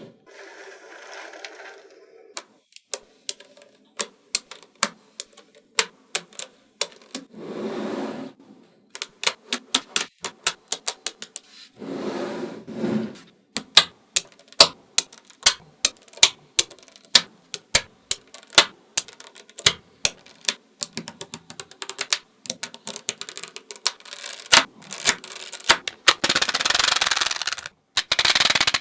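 Small magnetic balls clicking sharply together one at a time as they are snapped into place, with a few short spells of denser rattling as loose balls are shuffled.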